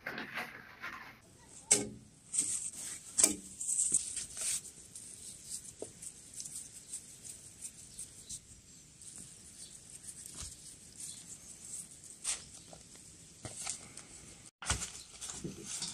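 Hands working wet glutinous rice dough in a stainless steel bowl and folding it into fresh leaves: soft squishing and leaf rustling, with a few sharp clicks and taps in the first few seconds.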